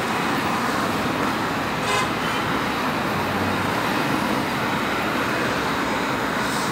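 Steady city street traffic noise from passing cars, with a short toot about two seconds in.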